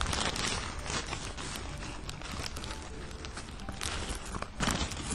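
Crinkling and rustling of a paper bag, with crackles from flaky pastry as a cheese pastizz is pulled out and bitten into: a steady run of small sharp ticks, denser near the end.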